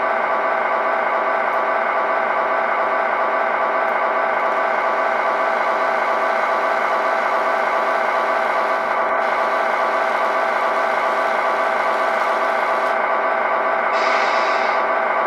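Steady mechanical whir from the radio-controlled Tamiya King Hauler wrecker while its underlift raises the front of a toy truck, holding one even pitch throughout.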